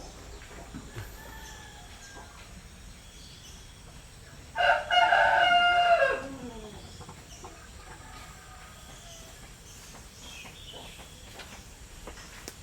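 A rooster crowing once: one loud cock-a-doodle-doo about a second and a half long, about four and a half seconds in, dropping in pitch at its end.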